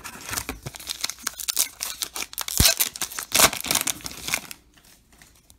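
Foil wrapper of a baseball-card pack being torn open by hand: crinkling and ripping, loudest about halfway through and dying down near the end.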